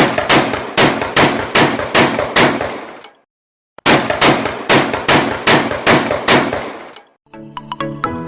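Shotgun firing two quick strings of about seven shots each, roughly two and a half shots a second, each shot ringing out, with a short pause between the strings. Background electronic music comes back in near the end.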